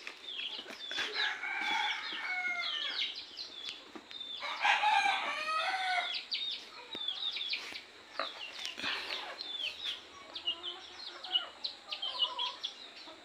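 Desi chickens clucking and calling, with many short high calls throughout; a rooster crows, the loudest call, about four and a half seconds in.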